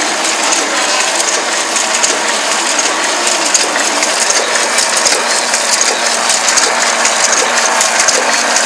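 Heidelberg GTO 52 sheet-fed offset printing press running: a steady, dense mechanical clatter of gears and grippers, with fine rapid clicks over a steady hum.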